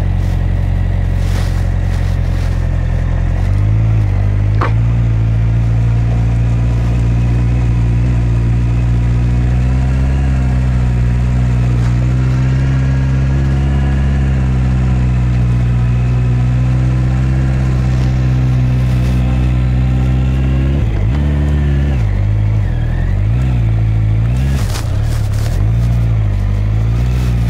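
Honda CB650R's inline-four engine running at low, steady revs as the motorcycle climbs a steep grade slowly. About twenty-one seconds in, the revs drop and then rise and fall several times before settling again.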